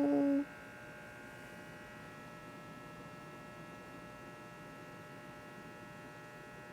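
A held sung note cuts off about half a second in. It is followed by a steady, faint electrical hum made of several fixed tones.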